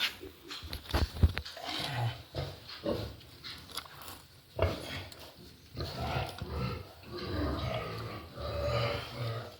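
Sow and newborn piglets grunting, with a couple of sharp knocks, the loudest about a second in.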